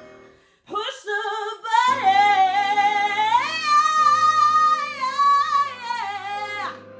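A woman singing the closing phrase of a song, ending in one long held note with vibrato that steps up in pitch partway through and stops just before the end, over a backing track with a steady bass.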